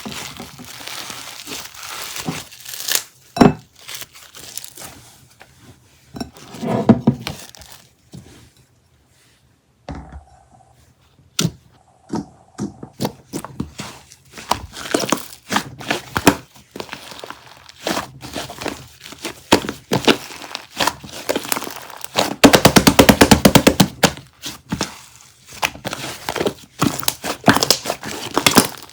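Close handling sounds: crinkling and tearing with scattered knocks and taps, and a quick, loud run of rapid clicks a little past the middle.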